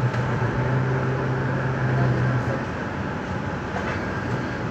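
Stadtbahn light-rail car running along street track, heard from inside the passenger compartment: a steady rolling and running noise. A low steady hum sits under it and stops about two and a half seconds in.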